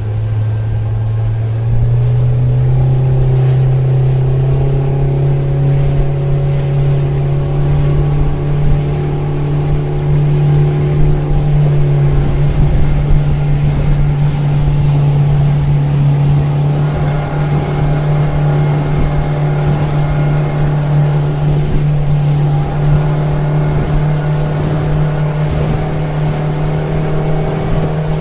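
Motorboat engine running under way, its pitch rising over the first two seconds and then holding a steady drone.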